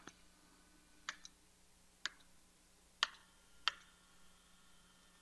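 Five short, sharp clicks about a second apart, the last two closer together, as keys are entered on a calculator.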